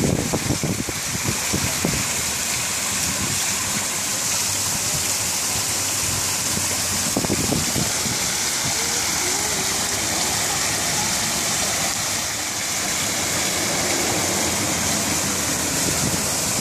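Steady rush of water pouring down an artificial stone waterfall, with a few low rumbles near the start and again about seven seconds in.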